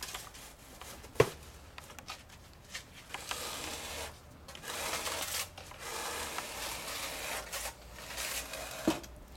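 Steel trowel scraping wet adhesive off the surface in stretches of a second or two, with a sharp knock about a second in and another near the end.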